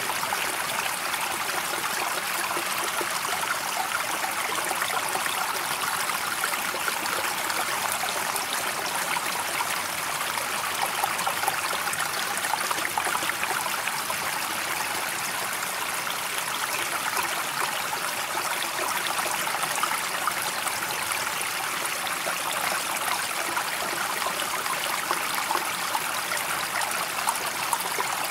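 Running water, a steady, even rush with no pauses or surges.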